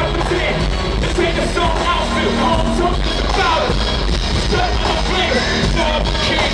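Live hip-hop concert music played over the arena sound system, heard from the audience: a steady heavy bass with a rapper's vocals over it.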